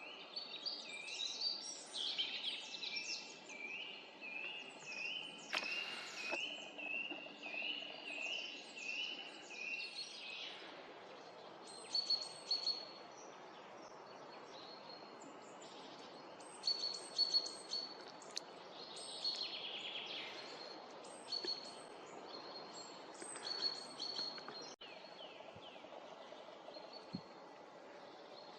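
Several small forest birds singing and calling over a faint background hiss: a busy run of quick repeated notes for the first ten seconds or so, then scattered short, high, thin calls.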